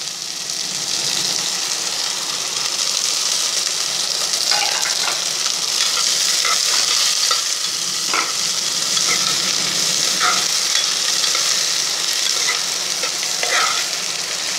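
Sliced onions sizzling in hot oil in a pressure cooker as they start to sauté, stirred with a metal spoon that scrapes and clinks against the pot a few times.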